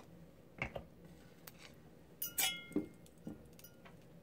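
A few small metallic clicks and clinks as a freshly soldered sterling silver chain is handled and lifted off the soldering block, the loudest cluster about two and a half seconds in with a brief ringing.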